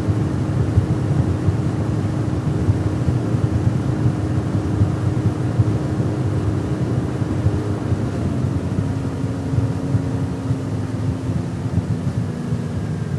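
Mercury Pro XS outboard motor running at speed on a bass boat, with the rush of wind and water around the hull. The engine's steady tone drops slightly in pitch about eight seconds in.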